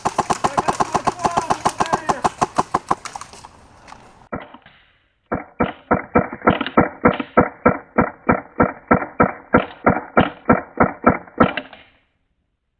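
Airsoft rifle firing: a fast burst of about ten shots a second for three to four seconds, then after a short pause a slower, even string of shots about four a second for some six seconds, stopping suddenly near the end.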